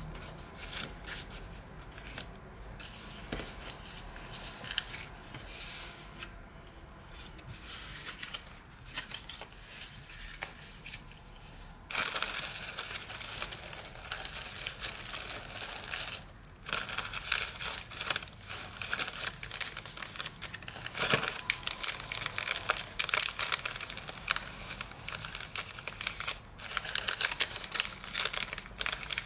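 Tissue paper crinkling and rustling as hands unfold and pull it open. It is light and sparse at first, then dense and louder from partway through. Near the end, wrapped tea-bag sachets are handled.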